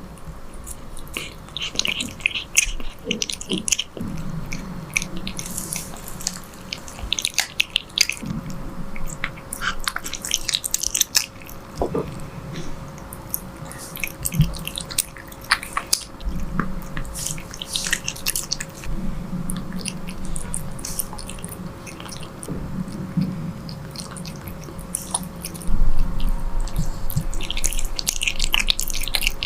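A cat eating, with irregular close-up chewing, biting and wet smacking sounds.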